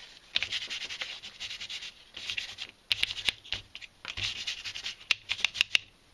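Sake-soaked kitchen paper being rubbed over a sheet of dried Hidaka kombu in several bursts of wiping strokes, with a few sharp clicks near the end; the kombu is being wiped with sake to prepare it for curing fish.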